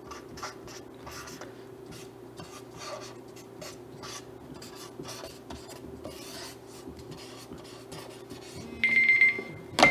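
Quick, scratchy strokes of an ink pen rasping across paper in a rapid sketch. Near the end a high, steady electronic timer alarm starts sounding, marking time up.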